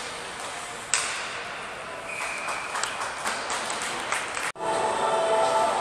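Ice hockey rink sounds: a steady arena hubbub with a sharp ringing ping about a second in, a short high steady tone near two seconds, and a quick run of clacks and clicks of sticks and pucks. The sound cuts out abruptly near the end, and music starts.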